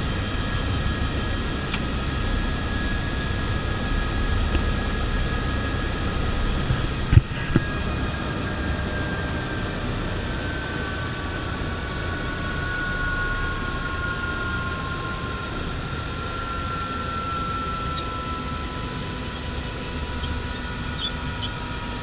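Airbus AS350 (H125) helicopter on the ground, heard from inside the cabin: a steady rotor and turbine rumble with a high turbine whine that slowly falls in pitch from about ten seconds in, as the engine winds down. A single sharp knock about seven seconds in.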